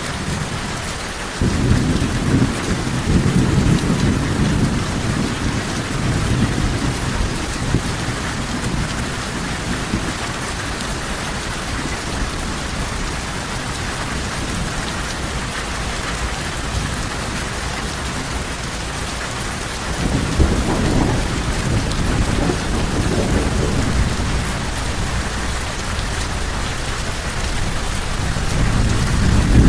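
Steady heavy rain falling on surfaces, with rolling thunder: a rumble breaks in suddenly about a second and a half in and rolls on for several seconds, and another starts about two-thirds of the way through, with a third building near the end.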